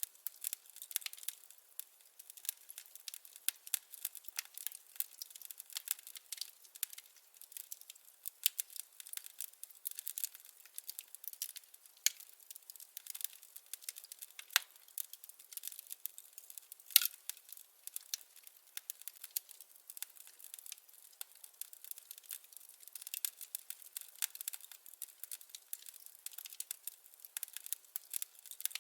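Wood fire crackling: a dense, irregular run of small pops and snaps from burning firewood, with one louder pop about two-thirds of the way through.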